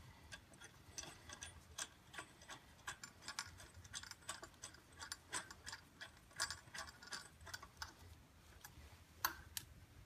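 Light, irregular clicks and taps of metal parts being handled, about two a second, as the drive variator is held in and its bolt refitted on the belt drive; one louder click about nine seconds in.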